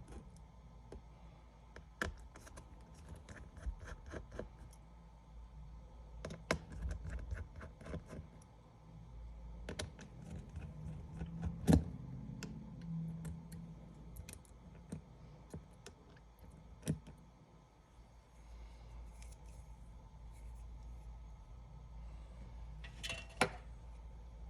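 Scattered small clicks and taps of hand repair tools against an opened iPad's frame and parts, with a sharper click a little before the halfway point, another about two thirds of the way in, and a short cluster of clicks near the end.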